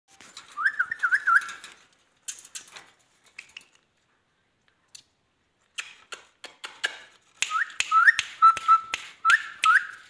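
Short whistled notes that sweep sharply upward, repeated in two quick runs, one near the start and one through the last few seconds, with sharp clicks and rattles in between.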